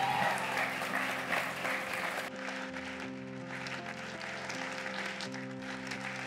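Congregation applauding over soft sustained chords on a stage keyboard. The applause is heaviest in the first two seconds, then thins out, leaving the held keyboard chords.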